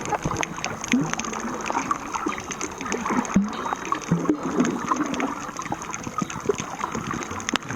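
Water sloshing, gurgling and splashing in irregular small bursts.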